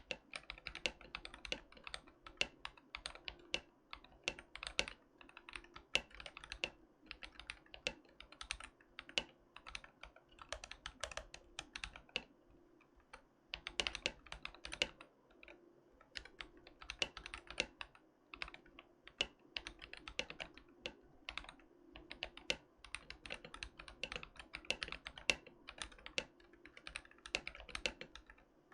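Continuous fast typing on an Akko ACR67 mechanical keyboard with stock, unlubricated Akko vintage white switches, a rapid patter of keystrokes broken by short pauses between words.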